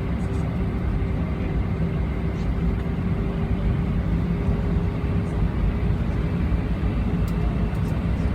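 Steady jet cabin noise inside an Airbus A320-family airliner: engine drone and rushing airflow, with a faint steady hum running through it.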